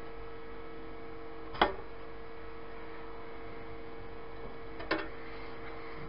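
Steady electrical hum, with one sharp click about one and a half seconds in and two quick clicks near the end.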